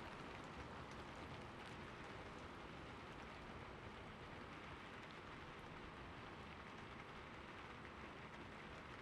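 Steady rain falling, an even soft hiss that holds level throughout.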